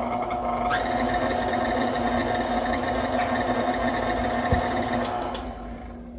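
Electric tilt-head stand mixer running at low speed, its flat beater paddle mixing flour into a wet batter. The motor note changes about a second in, then the motor winds down and stops near the end.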